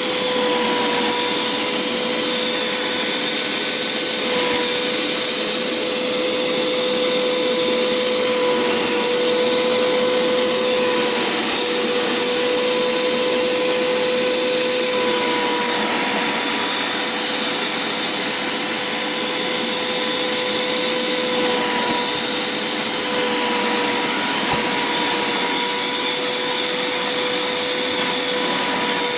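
Hoover Power Scrub Deluxe carpet cleaner running with its upholstery tool, a steady motor whine over rushing suction noise. The pitch dips slightly now and then.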